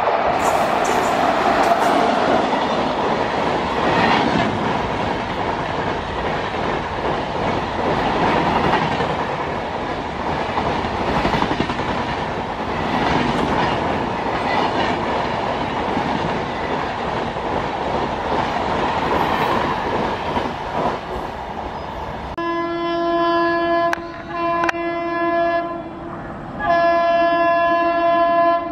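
WAP-7 electric locomotive-hauled express with LHB coaches running through at speed: steady rumble and wheel clatter over the rail joints. Near the end, an electric locomotive horn sounds two long blasts.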